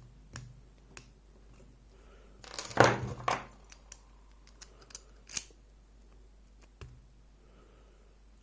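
Small metal clicks and scraping as the C-clip is worked off the back of a DOM iX6SR lock cylinder, with a louder scraping clatter about three seconds in and a few sharp clicks after.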